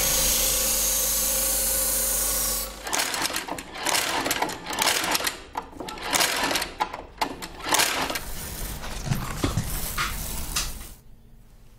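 Leatherworking sounds in a saddler's workshop: a steady machine noise for about three seconds, then a run of short, irregular scraping strokes like a knife cutting leather.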